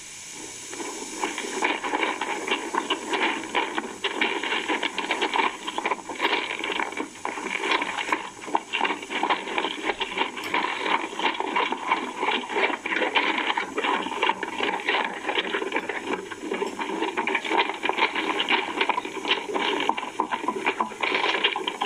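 Crunching footsteps of a group of men walking along a railway track's gravel ballast. It is a dense, irregular crackle with no steady beat, heard through a computer's speakers.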